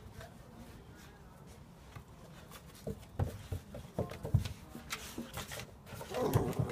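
A Pembroke Welsh corgi puppy and a pit bull play-fighting on a wooden deck: scuffling, with scattered knocks of paws and bodies on the boards from about three seconds in, growing louder near the end.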